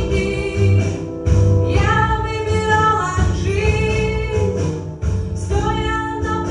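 A song: a woman's voice sings long held notes over instrumental accompaniment.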